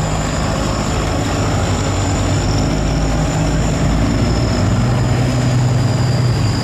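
Boat and barge engines running together in a steady, loud drone, with a second, lower engine note coming up about five seconds in.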